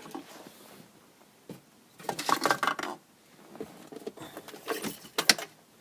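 Clicks and rattles of small plastic parts and wiring being handled, in two short clusters a couple of seconds apart.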